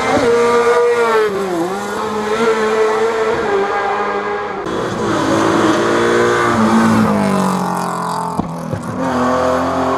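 Rally car engine at hard throttle on a hill climb stage, its pitch climbing and dropping several times with gear changes and lifts off the throttle as the car passes.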